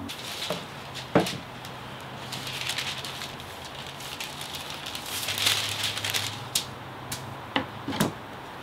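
Thin plywood pieces knocked and set down on a cardboard box, with wax paper crinkling as the wood is lifted and moved. The sharpest knock comes about a second in, two more near the end.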